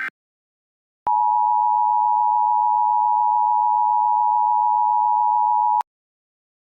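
Emergency Alert System attention signal: a steady two-tone beep held for about five seconds, starting about a second in and cutting off sharply. It announces the next alert message.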